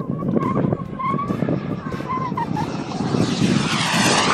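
RC model jet's turbine engine: a faint wavering whine from high up, then a loud rushing swell that rises and falls as a model makes a fast, low pass near the end. Wind rumble on the microphone underneath.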